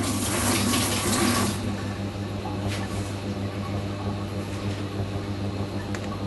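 Kitchen tap running for about a second and a half, then shut off, over a steady low hum.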